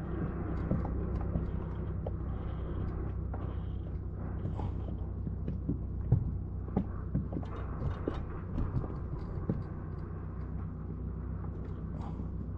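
Steady low hum of a boat's electric trolling motor, with scattered light knocks and clicks from handling gear in the boat; the louder knocks come about six, seven and twelve seconds in.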